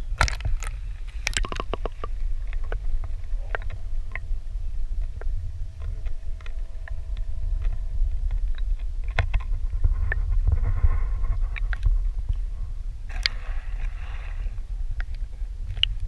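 Fishing tackle being handled in a canoe: scattered clicks and knocks, with a quick run of them near the start, over a steady low rumble. A faint steady whine runs for a few seconds in the middle, and there are two short hisses near the end.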